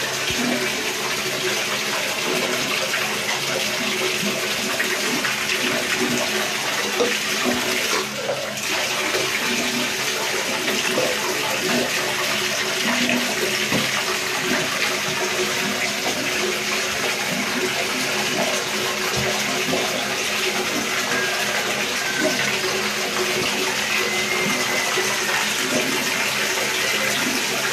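Water running steadily into a bathtub, with a brief break about eight seconds in.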